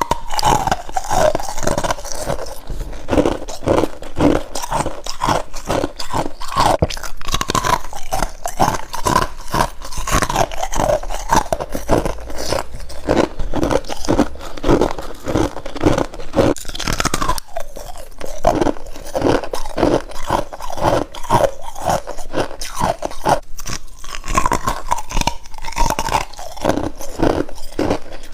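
A person biting into and chewing freezer frost: a continuous run of close, crisp crunches with squeaky, packed-snow-like chewing in between.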